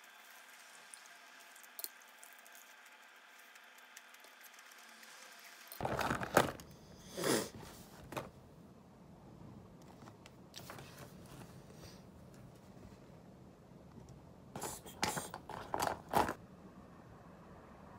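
Quiet room tone, then short bursts of handling noise at a desk: study things moved about and a plastic pencil case handled, its contents rattling. The bursts come about six to eight seconds in and again in a cluster near fifteen to sixteen seconds.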